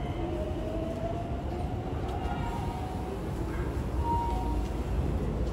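Electric train running at the station platform: a steady low rumble with a faint motor whine that rises slightly over the first couple of seconds.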